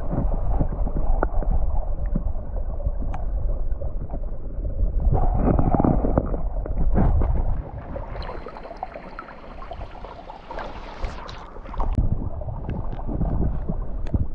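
Stream water heard through an underwater camera: a muffled gurgling and low rumble of flowing water, with scattered small clicks. About seven and a half seconds in, the camera comes out of the water and the sound drops to a thinner, quieter rush of the stream, then the underwater rumble returns after about twelve seconds.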